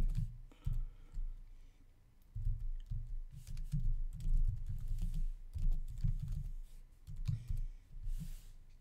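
Typing on a computer keyboard: irregular keystrokes in short runs, with a brief pause about two seconds in.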